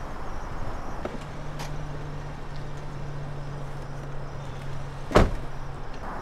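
An SUV idling with a steady low hum, then a car door slamming shut about five seconds in, the loudest sound.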